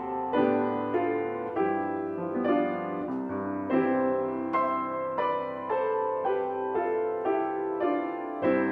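Piano playing a slow, gentle piece: a note or chord is struck about every half second and each one rings on under the next.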